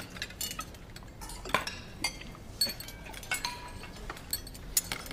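Cutlery and plates clinking at a dinner table, with scattered, irregular clinks as dishes are passed and food is served. One clink rings briefly, like a struck plate or glass.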